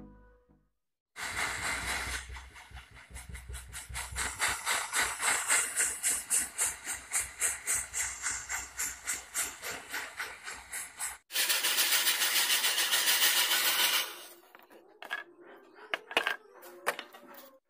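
Jeweller's torch flame blowing into a crucible to melt silver: a loud rushing roar that pulses rapidly and evenly for about ten seconds, then turns into a steadier hiss for a few seconds before it dies away, leaving a few clicks.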